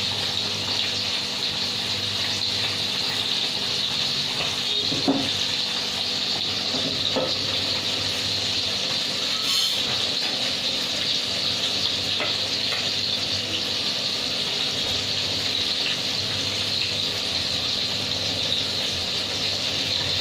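Bangda (Indian mackerel) cooking on a gas stove, a steady sizzle that holds level throughout, with a couple of faint knocks from the pan.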